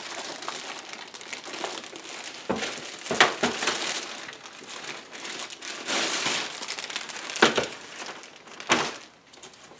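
Clear plastic bag crinkling and rustling as a boxed plastic photo-studio unit is worked out of it, with a few sharp knocks, the loudest sounds, as the unit is handled on the table.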